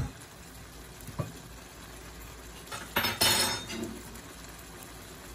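A wooden spoon knocking and scraping against a frying pan of meatball sauce. There is a light knock about a second in and a longer scraping clatter around three seconds in.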